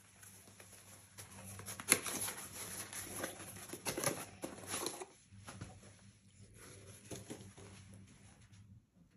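Handling noise: rustling with a run of irregular clicks and taps, busiest between about two and five seconds in, with one sharp click about two seconds in.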